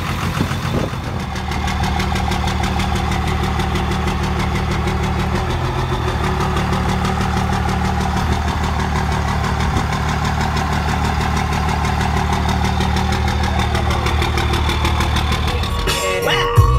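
Vehicle engine running steadily at idle: a low, even drone with a fast regular pulse.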